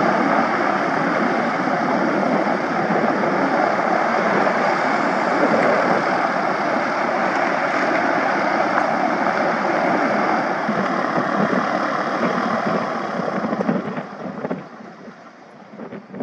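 Twin-engine propeller aircraft running both engines at high power, its prop wash blowing dust and buffeting the microphone with wind. About fourteen seconds in the engines are throttled back and the sound drops sharply.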